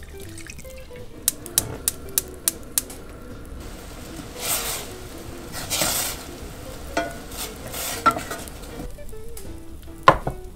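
Shallot, tarragon, vinegar and white-wine reduction simmering in a stainless steel saucepan, stirred with a wooden spoon in several sweeps, over background music. A run of sharp ticks comes in the first few seconds, and the spoon knocks once against the pan near the end.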